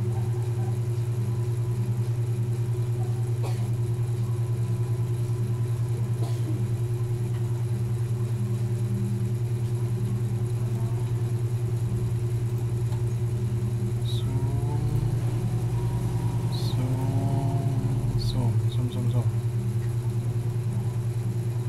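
Steady low mechanical hum that runs unbroken, with a couple of light clicks early on and faint background voices from about two-thirds of the way through.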